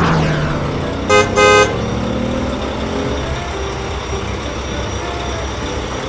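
Cartoon dump truck engine sound effect running steadily, with two short horn toots about a second in. A brief whoosh opens it.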